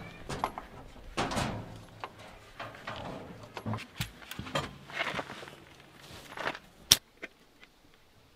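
Wrench clinking and scraping on a tractor's oil filter, with irregular knocks and rustling from the work under the engine. Near the end comes one sharp click, the loudest sound.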